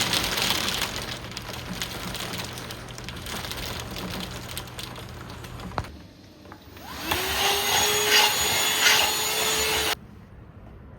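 An electric appliance's motor blowing a loud rush of air with a low hum; after a short break it starts up again with a rising whine that settles to a steady pitch, and cuts off suddenly near the end.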